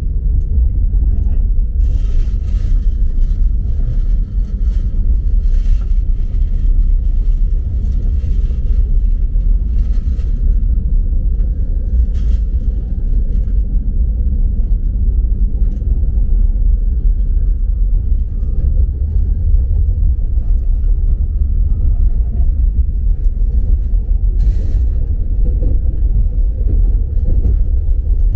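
Steady low rumble of a moving train heard from inside the passenger carriage, with faint scattered clicks and rattles, thickest in the first half and once more near the end.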